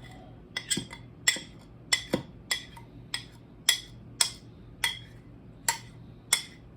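Dry spices being mixed in a small dish: a utensil clinks sharply against the dish about every half second, each clink ringing briefly.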